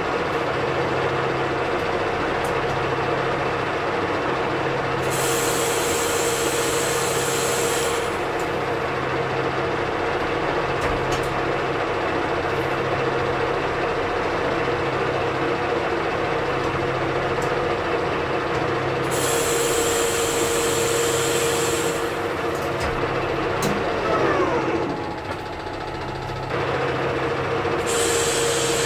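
Manual metal lathe running at about 630 RPM with a steady gear whine and a pulsing low hum, while a tool turns down the outside diameter of a metal disc by hand feed. A higher hiss from the cut comes in three times, and near the end the whine dips briefly with a falling tone.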